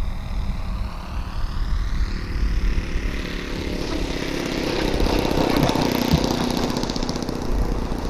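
The OS 52 four-stroke glow engine of a model airplane running at low speed as the plane comes in and lands, getting louder as it nears.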